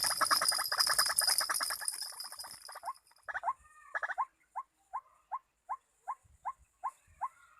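Bird calls: a rapid chattering of chirps over a high hiss for the first three seconds, then a steady series of short rising chirps, about two or three a second.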